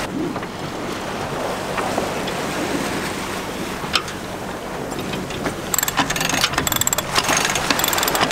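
Wind and water rushing past a sailboat under way, with wind buffeting the microphone. From about six seconds in, a deck winch ratchets in a fast run of clicks as its handle is cranked to trim a sheet.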